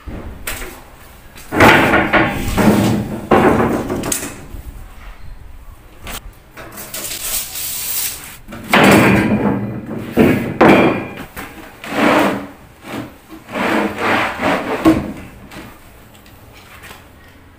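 A plywood sheet being handled: wood sliding and scraping, with knocks, in three bursts with pauses between.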